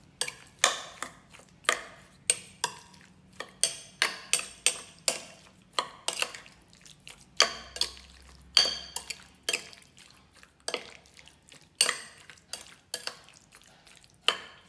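Metal spoon clinking and scraping against a glass bowl while stirring cubed raw beef in its marinade. The clinks are sharp and irregular, one or two a second.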